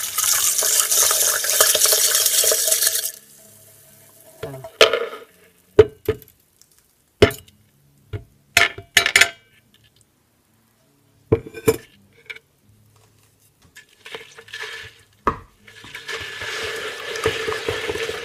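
Lye poured into water in a plastic container, a dense rattling hiss for about three seconds that cuts off sharply. Then scattered sharp clicks and knocks of a wooden stirring stick against the container, and near the end a steady swishing as the lye solution is stirred.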